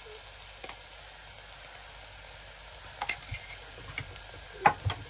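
Ghee sizzling softly as it melts in a hot frying pan, a steady light hiss, with a few sharp clicks, the loudest near the end.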